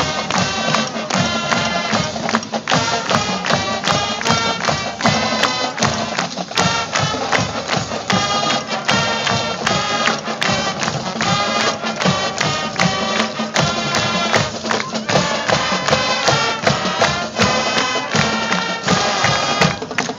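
High school marching band playing a brass-and-percussion number, with horns sounding held chords over a steady drum beat.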